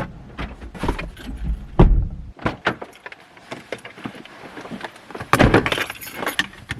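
Keys jangling among a run of sharp clicks and knocks, with a few heavy thumps.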